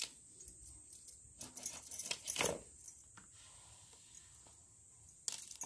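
Small knife cutting a whole raw chicken on a bed of leaves, with irregular clicks, scrapes and leaf rustles, and wrist bangles clinking as the hands work. The handling is busiest about a second and a half in and again near the end.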